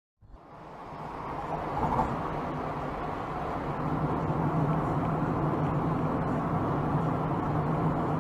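Road and engine noise of a moving car, heard from a dash cam inside the cabin. It fades in over about a second and then holds steady with a low hum.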